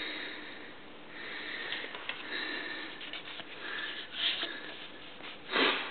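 A person sniffing close to the microphone, with two short breathy swells near the end, over a low steady workshop background hum.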